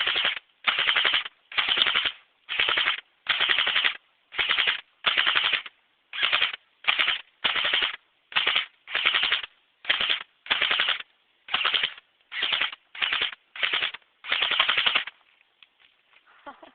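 Tokyo Marui MP5 RIS electric airsoft gun firing short full-auto bursts of BBs, about one burst a second, then stopping near the end.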